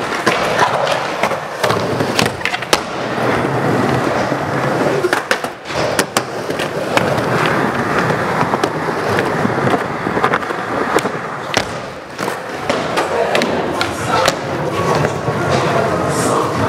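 Skateboard wheels rolling steadily over a smooth park floor, broken again and again by sharp clacks of tail pops, landings and the board hitting ledges.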